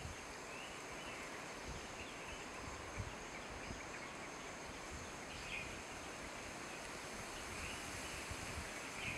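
Faint outdoor ambience: a steady background hiss with a few short, faint bird chirps now and then.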